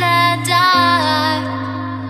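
Background music: a melody over held low notes that change about every second and a half.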